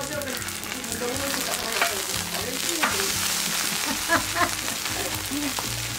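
Seafood and green onion pancake (haemul pajeon) sizzling in oil on a cast-iron gamasot lid as it is flipped with two spatulas. The sizzle swells around the middle, and a few short scrapes and taps of the spatulas ring on the metal.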